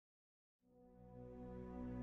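Ambient music fading in about half a second in: a low sustained drone with held chords, growing steadily louder.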